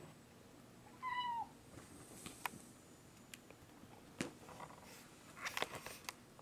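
A cat gives one short meow about a second in, bending slightly downward in pitch. Scattered light taps and scuffles follow as the cats play on the carpet, with a short cluster of them near the end.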